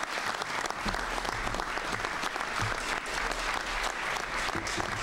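Audience applause: many people clapping steadily, a dense, even patter of hands.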